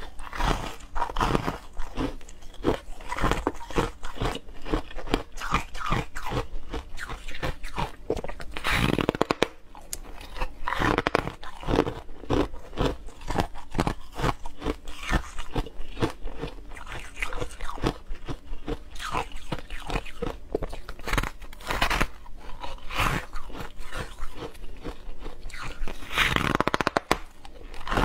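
Soft freezer frost being bitten and chewed: a dense, continuous run of fine crunches and crackles, with a few louder bites standing out.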